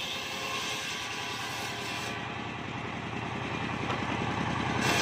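Large circular sawmill blade spinning and ripping mahogany planks: a steady mechanical drone with a fast even pulsing and the hiss of the cut. The hiss drops away about two seconds in, while the blade runs free, and comes back near the end as it bites into the wood again.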